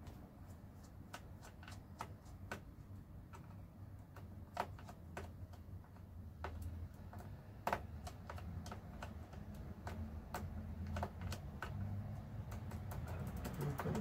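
Small cross-head screwdriver undoing a bottom-case screw on an Asus Vivobook M513U laptop: irregular light clicks of the bit and screw, coming in a quick run near the end, over a low steady hum.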